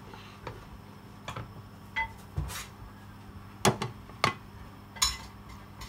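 A serving utensil knocks and clinks against a glass baking dish as cooked biryani rice is spooned into it: a series of separate sharp knocks, some ringing briefly, the loudest in the second half.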